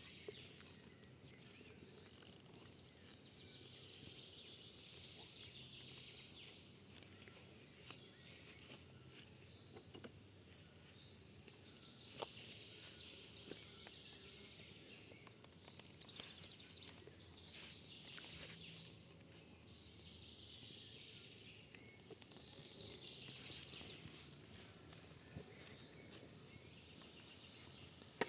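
Faint birds chirping and singing, with a few scattered soft clicks.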